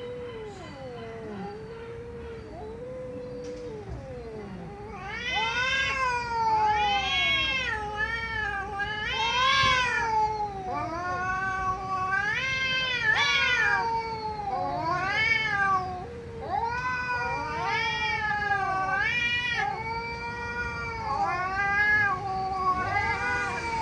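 Domestic cat yowling (caterwauling) in long, drawn-out cries that rise and fall in pitch, faint for the first five seconds or so and then louder and nearly continuous.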